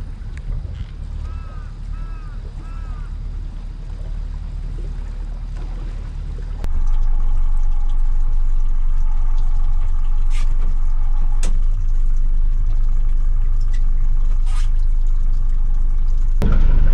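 A small fishing boat's engine idles with a steady low rumble while water laps at the hull. Four short chirping calls come in the first few seconds. The rumble gets louder about seven seconds in.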